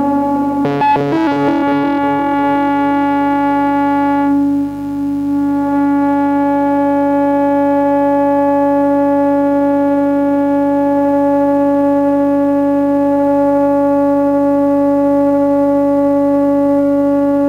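Modular synthesizer drone run through a Korg Monotron Delay. A quick flickering run of repeating notes over the first four seconds, then one steady pitch held as a long sustained drone.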